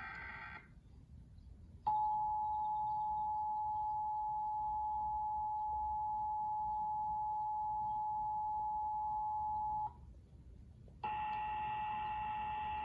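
Emergency Alert System attention signal: the steady two-tone at 853 and 960 Hz, held for about eight seconds and starting about two seconds in, just after the tail of a harsh digital header burst. About a second after the attention tone stops, a different steady tone with several pitches begins.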